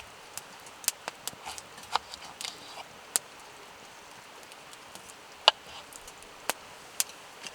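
Wood campfire crackling, with sharp irregular pops over the steady rush of a nearby stream.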